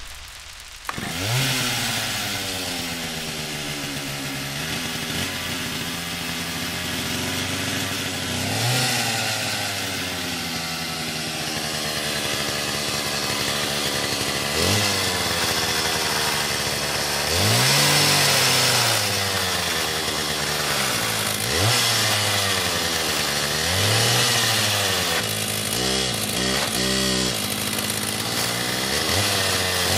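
Chainsaw engine running and being revved up and let back down over and over, the first rev about a second in, with a quick run of short blips of the throttle a few seconds before the end.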